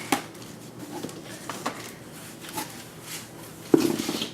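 Hard plastic CGC grading slabs clicking and tapping as they are handled, with a louder knock near the end.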